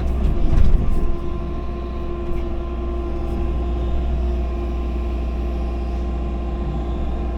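Excavator running steadily, a deep engine drone with a steady whine over it, louder with some clatter in the first second.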